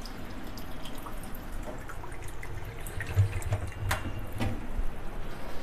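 Water poured from a glass into a pan of marinated mutton pieces: a steady splashing pour, with a few light clicks.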